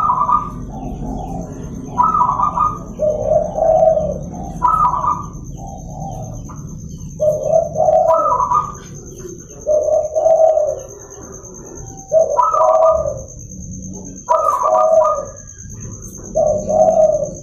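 Zebra doves (perkutut) cooing in repeated phrases about every two seconds, each a short higher note followed by lower, rolling coos.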